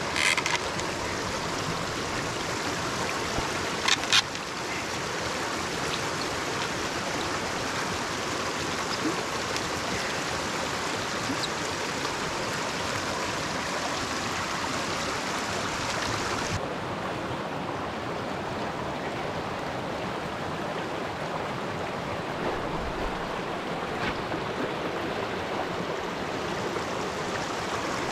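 Rocky mountain stream rushing over stones, a steady hiss, with a short clatter right at the start and two sharp clicks about four seconds in. Past halfway the hiss turns duller.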